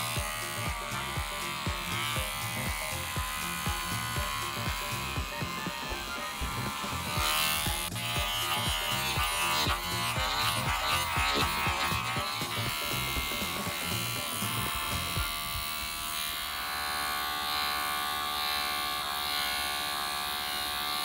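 Handheld electric pet clipper running steadily as it cuts through a chihuahua's coat, with background music that has a steady beat for most of the stretch.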